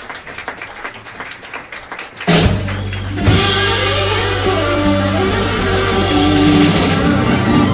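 Live blues band playing electric guitar, saxophone, bass and drum kit. After about two quieter seconds of scattered clicks the band comes in loudly, with drums and cymbals joining about a second later.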